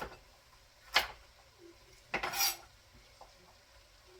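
Kitchen knife chopping vegetables on a cutting board: two sharp chops about a second apart, then a longer, rougher sound about two seconds in.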